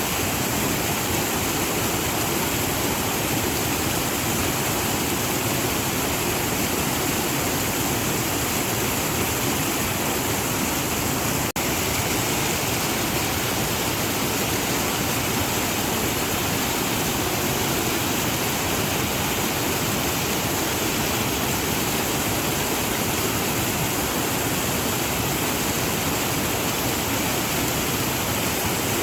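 Waterfall: water falling and rushing in a steady, dense roar, with one momentary dip in level about a third of the way through.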